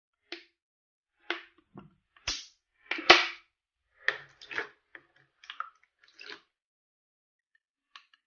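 Short, sticky wet squelches and clicks from clear-glue slime being handled and worked, coming irregularly with the loudest about three seconds in, then a pause of about a second and a half before a few faint ticks at the end.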